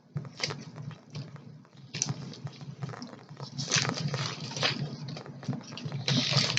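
Close-up eating sounds: biting into and chewing a fried spicy chicken sandwich, with irregular wet clicks and crackly crunches that grow denser about four seconds in and again near the end.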